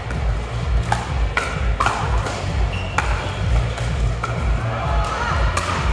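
Pickleball rally: sharp pops of paddles striking the plastic ball, several times at uneven intervals, over background music with a low, pulsing beat.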